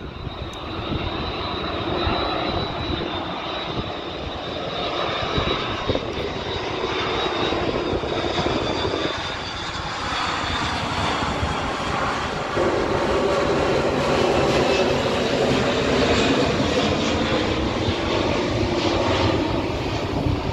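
Airbus A330 jet engines on approach with landing gear down, passing low overhead: a high fan whine over a continuous rush of engine noise. The whine sags slightly in pitch and fades around halfway through, and the rushing engine sound grows louder as the plane moves away.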